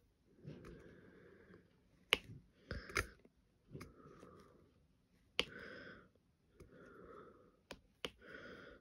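Diamond-painting drill pen working: several sharp clicks and taps at irregular intervals as the pen picks resin drills from a plastic tray and presses them onto the canvas. Softer rustling fills the gaps between the taps.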